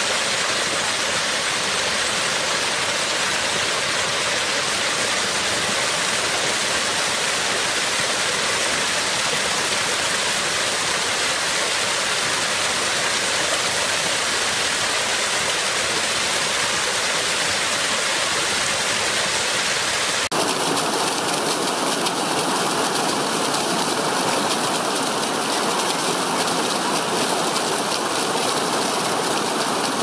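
Fast mountain stream rushing and churning around boulders, a steady wash of water noise. About two-thirds of the way through it cuts abruptly to a smaller cascade spilling down a rocky slope, with a thinner, hissier sound and less low rumble.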